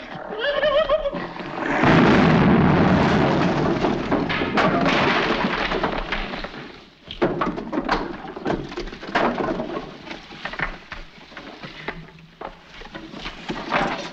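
Loud crash of a room collapsing, lasting several seconds, as timber and plaster come down. It is followed by many scattered knocks and clatters of falling wooden debris. A short wavering cry comes just before the crash.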